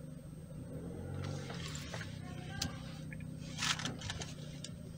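Quiet car-cabin interior: a steady low hum with a few small clicks and a short rustle a little past the middle.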